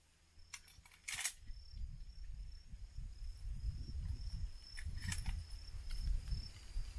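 Over-and-under shotgun being broken open and shells handled between skeet targets: a few sharp clicks and a metallic clink about a second in, then more clicks about five seconds in. A low, uneven rumble runs under them from about a second and a half on, with a faint steady high tone throughout.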